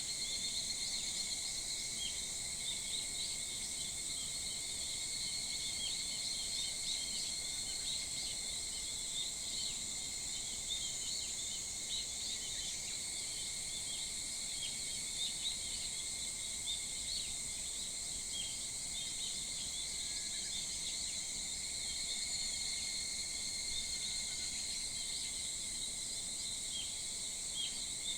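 Early-morning summer chorus of insects, a continuous shrill drone on several high pitches, with many short chirps scattered through it.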